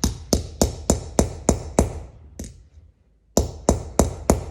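Hammer striking a steel driver post that sets a pants clasp, spreading the post so the clasp locks onto itself. About eight sharp strikes at roughly three a second, a pause of about a second, then four more.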